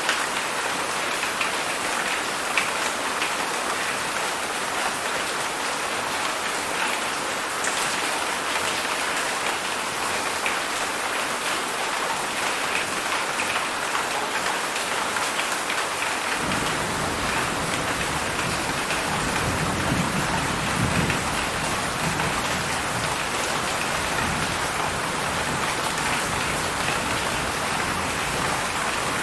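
Heavy rain falling steadily, a dense even hiss of drops. About halfway through a low rumble of thunder comes in and rolls on under the rain, strongest a few seconds after it begins.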